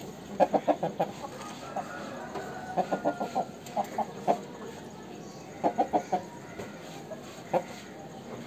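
Aseel rooster clucking: short runs of three to five quick clucks, repeated about five times with pauses between.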